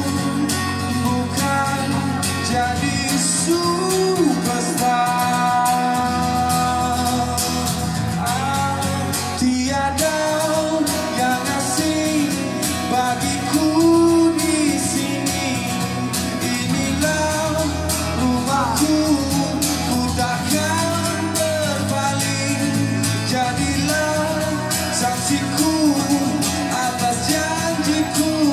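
A man singing live to his own acoustic guitar strumming, through a microphone.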